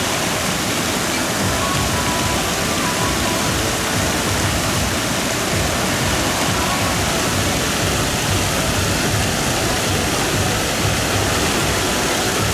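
Steady rush of falling and splashing water from waterpark water features, loud and unbroken, with faint music underneath.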